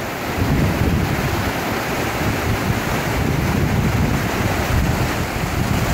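Shallow river rapids rushing over rocks in a steady, even roar of water, with wind buffeting the microphone.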